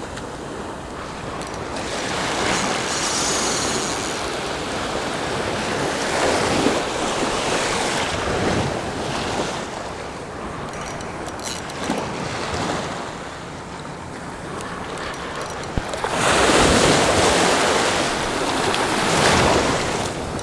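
Small surf washing in and out over the shallows at the water's edge, swelling and fading every few seconds, loudest about sixteen seconds in.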